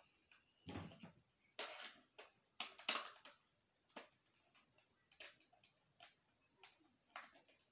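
Plastic clicks and knocks from a fan-type LED bulb's white blade panels and housing being handled and fitted together: a handful of sharp ticks, the loudest between about one and three seconds in, then fainter ones.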